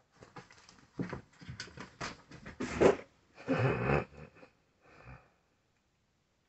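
A kitten snorting twice, two short noisy bursts about a second apart, after a few softer scuffling sounds.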